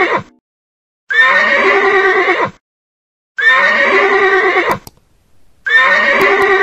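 Horse whinnying: the same recorded neigh played three times, about two and a quarter seconds apart, with the end of another at the very start. Each call lasts about a second and a half, opening on a high note and breaking into a shaky, quavering tail.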